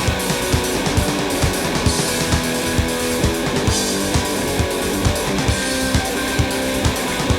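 Instrumental rock music: strummed electric guitar over a steady drum beat.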